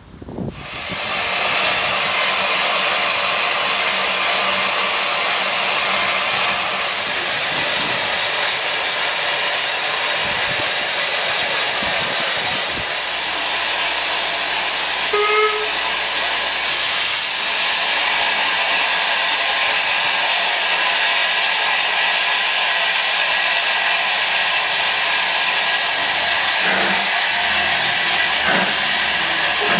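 0-6-0 saddle tank steam locomotive hissing steadily with steam escaping low at its cylinders, starting abruptly about half a second in. Near the end a few slow exhaust beats come through as the engine starts to move its train.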